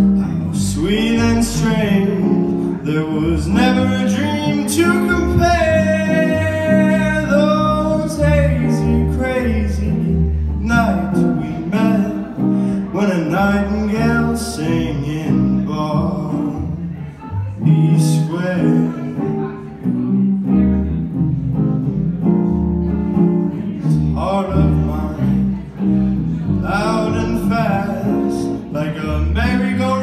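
Small jazz group of two hollow-body electric guitars and a plucked upright double bass playing an instrumental passage, one guitar carrying the melody over the other's chords and the bass line.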